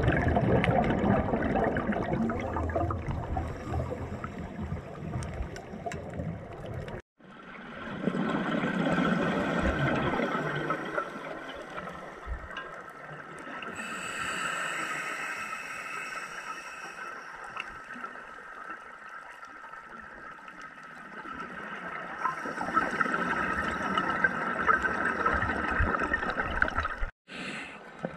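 Scuba regulator bubbles gurgling and rushing underwater, swelling in surges every few seconds, with a steady thin tone underneath. The sound cuts out abruptly for a moment about seven seconds in and again near the end.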